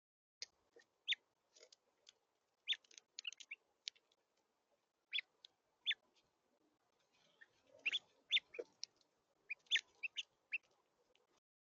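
Small songbirds giving many short, sharp chirps, scattered irregularly and sometimes in quick clusters.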